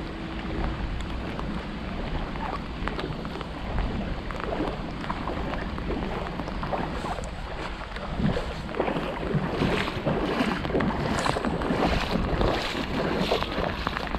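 Steady patter of rain falling on a shallow river, with wind rumbling on the microphone. A run of small crunches and clicks grows busier and a little louder in the second half.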